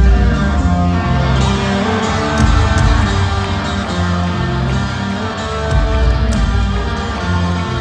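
Rock band playing live, with electric guitar and bass in a driving groove that starts abruptly.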